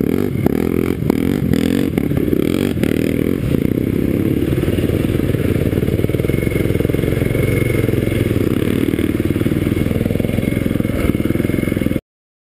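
Dirt bike engine running under way, heard close up from the bike itself, with water and mud splashing as it rides through a flooded trail. The sound stops abruptly near the end.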